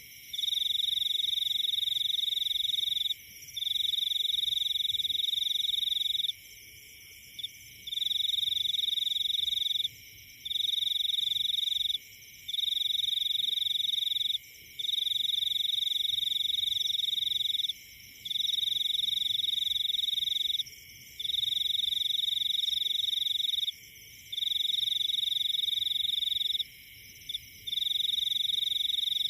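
A wild animal calling in the forest: one high, steady trill repeated in bouts of two to three seconds with short breaks between them, over a fainter continuous chorus of other high calls.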